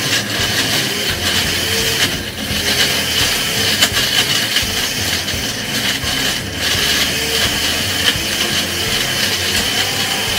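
Electric countertop blender running steadily, blending an avocado shake.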